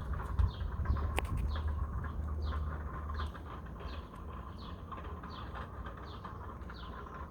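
A small bird calling over and over, a short falling chirp repeated about every two-thirds of a second, over a steady low rumble. A single sharp click about a second in.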